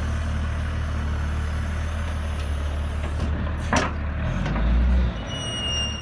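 A wheel loader's diesel engine running with a steady low rumble. A sharp clank comes a little over halfway through, and the engine swells briefly near the end, followed by a short high squeal.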